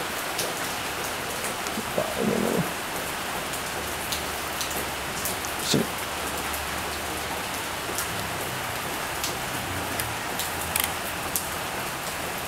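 Steady hiss of rain, with scattered small clicks and a couple of soft knocks.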